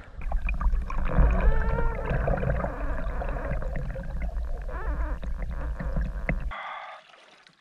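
Water heard from a submerged camera: a muffled low rumble with gurgling and bubbling, and a few brief warbling tones. About six and a half seconds in it cuts abruptly to a thinner, quieter hiss that fades away.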